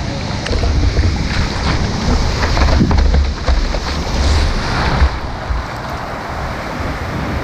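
Wind buffeting the microphone with a heavy low rumble, over the wash of surf on a beach. The rumble swells about half a second in and eases after about five seconds.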